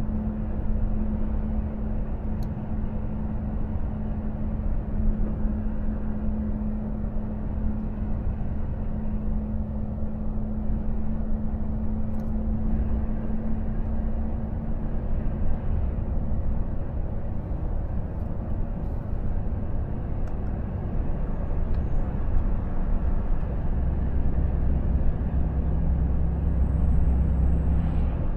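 Inside the cab of a Volvo FH truck under way at about 60 km/h: a steady engine drone with tyre and road noise. The low drone grows stronger over the last few seconds as the truck speeds up.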